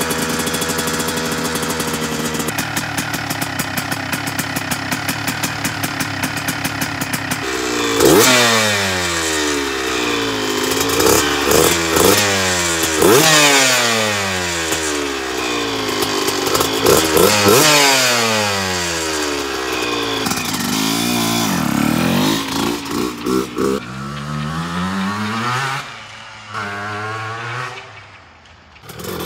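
Honda CR125 two-stroke single-cylinder dirt bike engine running, first at a steady idle, then revved over and over from about eight seconds in, its pitch climbing and dropping again and again before it settles lower near the end.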